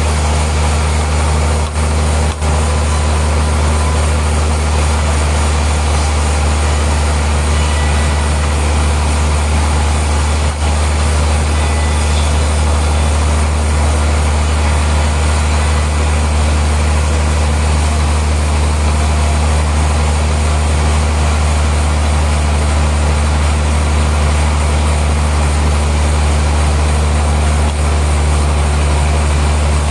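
Sawmill machinery running steadily: a constant deep hum under an even mechanical din, with two brief dips about two seconds in and another near ten seconds.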